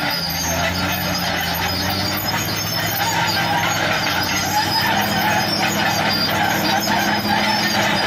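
Caterpillar D6R crawler bulldozer's diesel engine running steadily under load as the blade pushes a pile of gravel and sand, with the metallic clatter and squeal of its steel tracks.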